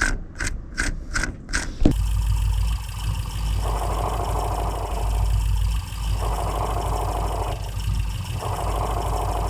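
Car engine idling with a damaged clutch release (throwout) bearing: a whirring growl comes in three times and drops away again, the noise a worn throwout bearing makes when the clutch pedal is pressed. For the first two seconds there are fast, evenly spaced knocks, about three a second.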